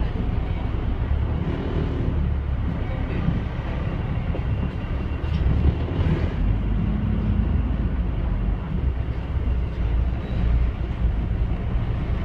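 Cabin noise heard from the upper deck of a moving double-decker bus: a steady low rumble of the diesel engine and road noise, with the engine's hum showing up briefly a couple of times.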